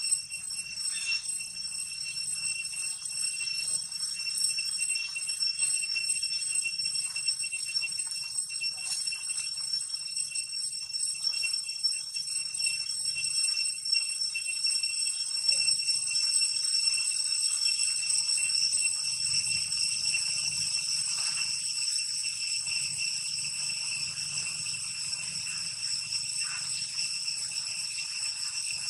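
Insects droning steadily at a high pitch, with a shimmering, jingling quality, a little louder in the second half.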